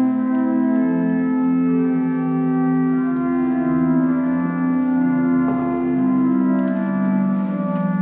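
Church organ playing slow, held chords, the notes changing every second or so.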